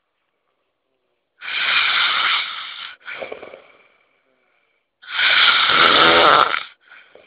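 A sleeping man snoring loudly: two long, rasping snores about three and a half seconds apart, each followed by a shorter, quieter one.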